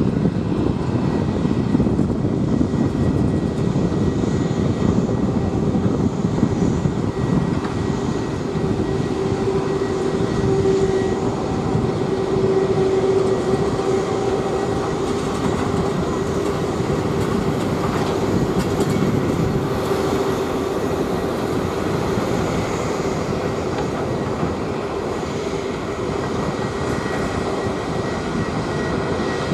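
Airbus A321's twin turbofan jet engines running at low taxi power: a steady rumble with a whining tone through it.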